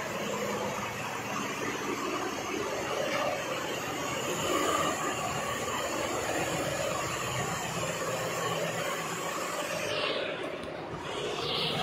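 24-head embroidery machine running, a steady, dense, fast mechanical clatter from its stitching heads, dipping briefly near the end.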